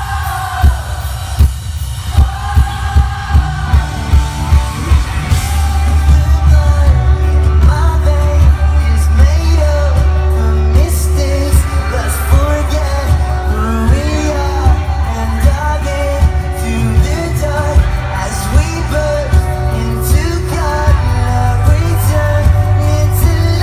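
Pop-rock band playing live: a lead vocal sung over a steady drum beat and heavy bass. The full band comes in louder about five seconds in.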